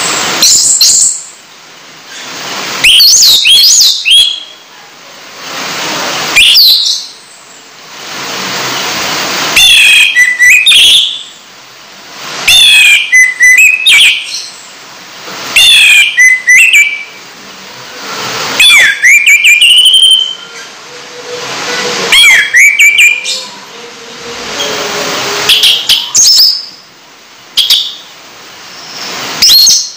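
Caged songbird singing in short bursts of quick, whistled chirps and gliding notes, about every three seconds. Each burst follows a hissing rush like running tap water that swells for a second or two, and the bird answers it.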